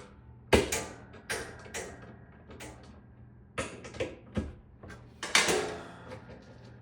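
Irregular clicks and knocks, about a dozen, from parts and tools being handled on a top-load washing machine as it is taken apart. The sharpest knock comes about half a second in, and a cluster of knocks falls near the end.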